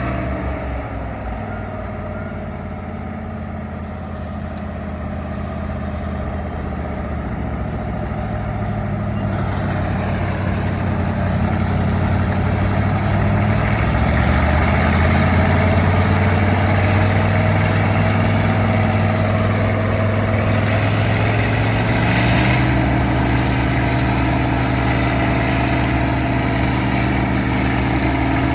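Tractor engine running steadily while working a corn-harvesting machine. It grows louder over the first half, and a higher rushing noise joins in about nine seconds in.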